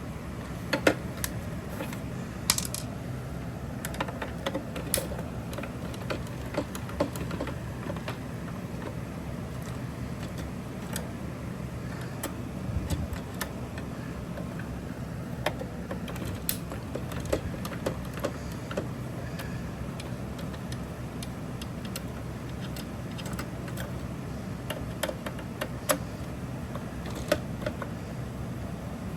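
Irregular light clicks and taps of hands and tools on plastic and metal as an amplifier board is worked out of an old plastic computer-speaker enclosure, over a steady low hum.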